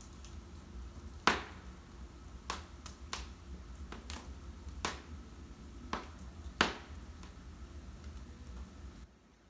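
Wood fire in a fireplace crackling, with sharp irregular pops of the burning logs over a low steady rumble of the flames. The sound cuts off suddenly near the end.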